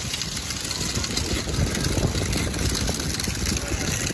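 Wind buffeting the phone's microphone: a steady, uneven low rumble.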